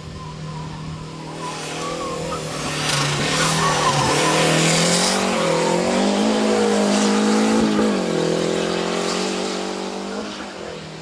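Hill-climb race car's engine at full throttle as it climbs through the hairpins, the revs rising and dropping several times with gear changes and corners. It grows louder toward the middle and fades over the last few seconds as the car pulls away up the hill.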